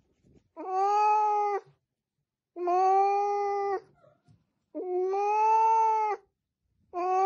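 Domestic cat giving long, drawn-out meows, four in a row about a second apart, each held at a steady pitch for more than a second.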